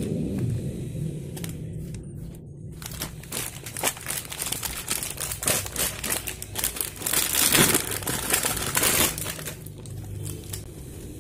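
Thin plastic sachets crinkling as hands squeeze and fold them, dish soap and then a pouch of white glue. The crackles are irregular and loudest about seven to nine seconds in.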